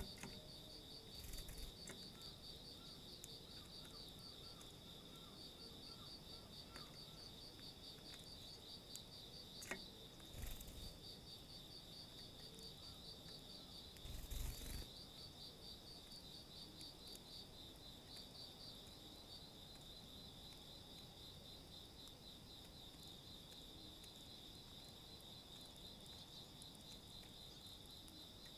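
Faint, steady insect chirring: a high, fast-pulsing trill that runs without a break, with a few brief soft bursts of noise about one, ten and fourteen seconds in.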